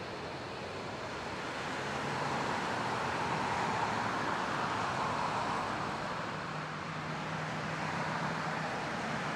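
Four-engine Airbus A380 jet airliner landing and touching down on the runway: a steady rushing jet noise that swells a second or two in, eases a little past the middle, then builds again.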